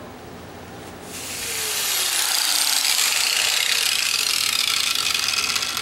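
Grinder taking steel off the heavy end of a high-lift mower blade to bring it into balance. A steady grinding noise starts about a second in and holds.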